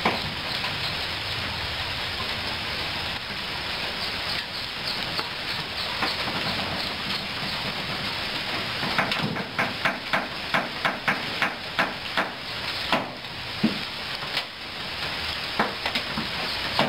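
Steady rushing background noise, with a run of sharp knocks starting about halfway through at roughly three a second, then a few single knocks near the end: knocking on the raised dump bed of a Mitsubishi Colt dump truck as rocks are cleared from it.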